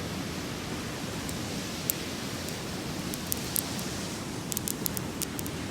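Steady hiss of surf and wind, with scattered sharp little clicks or crackles that come more often near the end.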